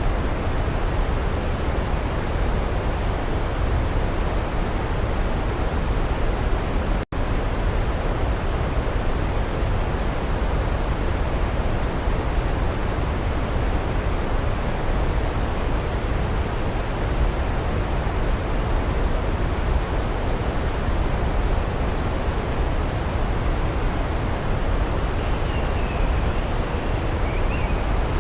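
Waterfall rushing steadily, heavy in the low end; it cuts out for an instant about seven seconds in. Faint distant bird calls near the end.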